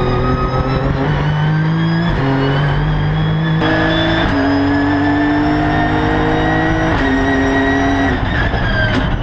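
Nissan GT-R Nismo GT3's twin-turbo V6 accelerating, heard from inside the cockpit: the engine note climbs steadily and drops sharply at each upshift, three times. Near the end there are two sharp cracks.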